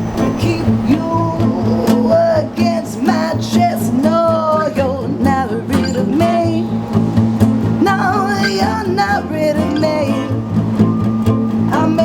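A small live band playing: strummed guitar and upright bass, with a sung melody over them.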